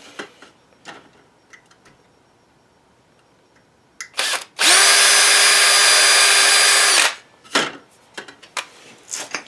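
Cordless drill with a 1/16-inch bit drilling into a shutter slat: a short blip about four seconds in, then the drill runs at a steady whine for about two and a half seconds and stops. A few light handling clicks and knocks before and after.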